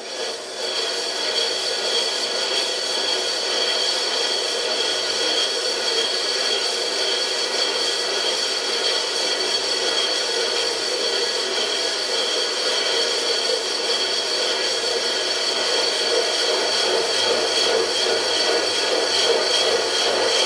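Parting tool plunging into a spinning cast iron bar on a Sieg SC4 mini lathe under power cross-feed at 100 RPM: a steady rasping scrape with a high whine over it, building up in the first second.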